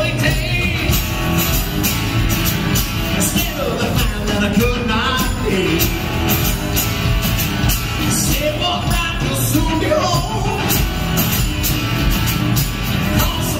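Live rock band playing: drums keeping a steady beat under bass, electric guitars and a strummed acoustic guitar.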